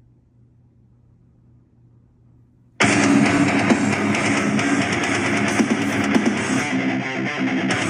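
Quiet room tone with a faint low hum, then nearly three seconds in post-hardcore metal starts abruptly, with electric guitar and drums, played back through an Anker Soundcore Bluetooth speaker.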